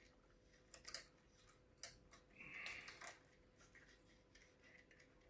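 Faint, irregular small clicks and a brief light scrape from the metal parts of a cuckoo clock's movement and chain being handled, as the chain is worked back around its gear.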